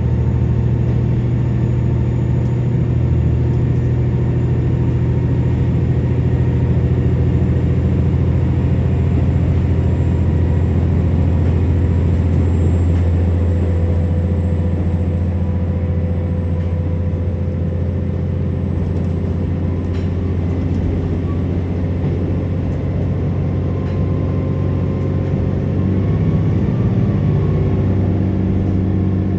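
Interior of a KiHa 47 diesel railcar running between stations: the diesel engine's steady low drone with rolling noise, and a faint high whine that slowly rises in pitch.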